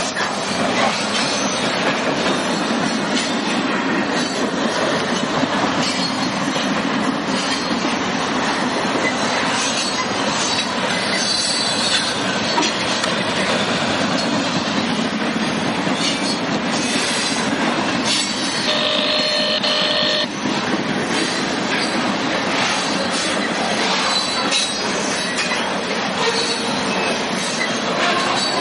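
Freight train of flatcars loaded with trash containers rolling past close by: a steady din of steel wheels on rail and rattling cars. A brief squeal comes about two-thirds of the way through.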